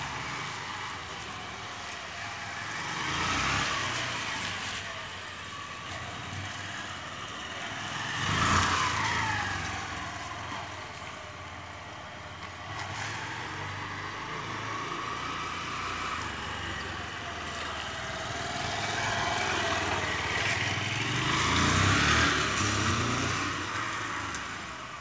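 Small motorcycle engine running as the bike rides slow laps, growing louder as it comes near and fading as it moves away. It is loudest about eight seconds in, where its note falls as it goes past, and swells again near the end, its pitch rising and falling with the throttle.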